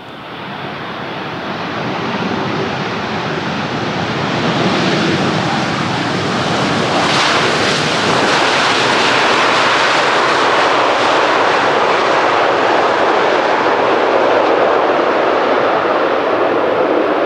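Boeing 787-9 jet engines during landing: a wide rushing noise that grows louder over the first few seconds, then holds loud and steady.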